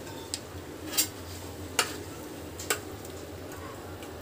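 A metal spoon stirring thick chana dal in a nonstick kadhai, with a few sharp clinks of the spoon against the pan, roughly one a second through the first three seconds.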